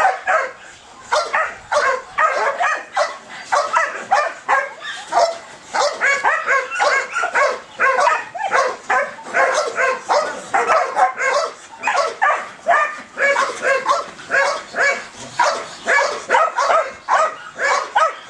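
Belgian Malinois yipping rapidly in high excitement, two or three short high-pitched calls a second without a break, as it works to get the ball: a sign of strong ball drive.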